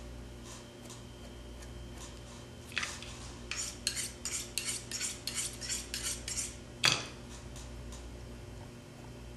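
Quick run of short clicks and scrapes from a hand tool worked on a deer cape, about four a second for a few seconds, then one sharper click, over a steady low hum.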